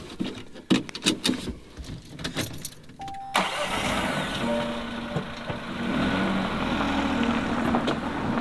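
A few sharp clicks and knocks, then a small van's engine starts about three seconds in and runs steadily, picking up a little near the six-second mark.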